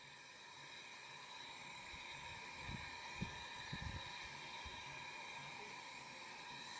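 Faint, steady hiss of steam from the Mh.1 narrow-gauge steam locomotive, heard from down the train, with a few soft knocks about three to four seconds in.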